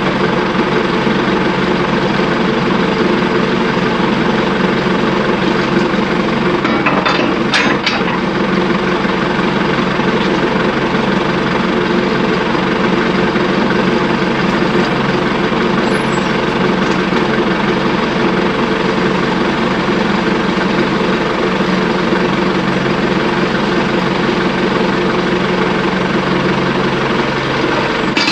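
Tractor engine running steadily at a constant speed, with a brief sharp clatter about seven seconds in.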